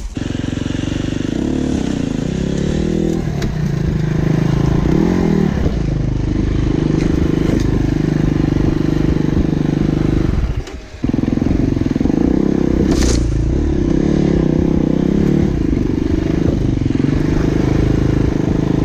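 Enduro dirt bike engine running under changing throttle as it is ridden, its pitch rising and falling. The sound drops away briefly about eleven seconds in, then picks up again.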